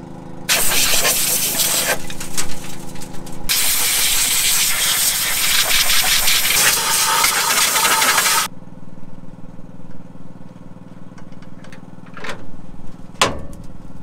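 Compressed-air blow gun blasting dust out of the moisture meter and grain auger area of a John Deere combine's grain tank: a blast of about a second and a half, then a longer one of about five seconds. Under it the combine's engine hums steadily at idle, and two sharp clicks come near the end.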